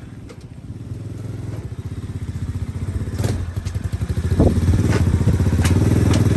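125cc ATV's single-cylinder engine running on a freshly swapped carburetor, getting steadily louder as the quad rolls up close. A few sharp clicks and a thump come in the second half.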